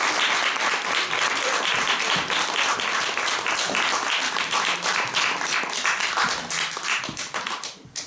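Audience applauding, many hands clapping, thinning out and dying away near the end.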